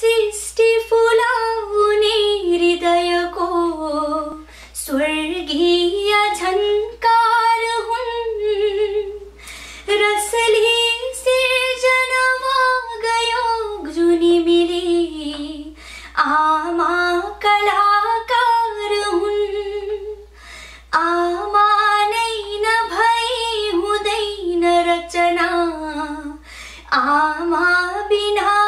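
A woman singing a slow melodic song solo, in long phrases with trembling held notes and short pauses between them.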